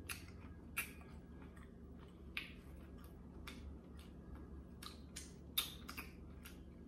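Close-up mouth sounds of eating: irregular sharp, wet smacks and clicks from lips and finger licking while chewing taco, over a low steady hum.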